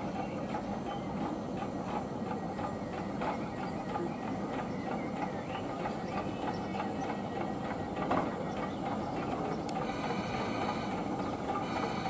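A train running on the rails: a steady hiss and rumble with many quick clicks from the wheels, and brief high squeals about ten seconds in and again near the end.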